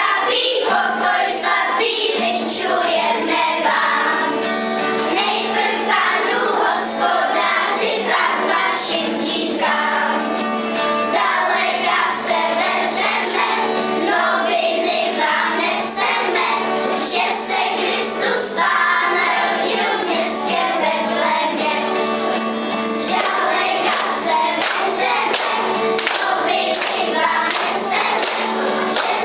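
A class of young children singing a Czech Christmas carol together in chorus, continuously.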